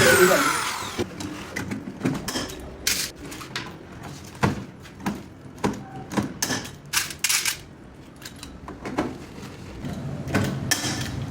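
A power tool, likely a drill or driver, runs down and stops about a second in. Then come irregular sharp clicks and knocks of tools and metal or plastic parts being handled during refrigerator repair work.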